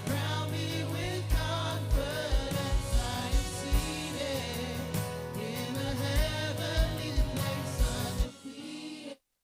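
Worship song with singing voices over a band, with low drum hits, played back as a personal monitor mix. The drums and bass drop out about 8 seconds in, and the remaining sound cuts off abruptly just after 9 seconds.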